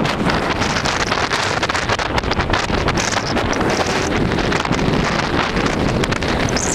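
Wind buffeting the microphone of a camera riding in a moving car, over the car's steady road noise.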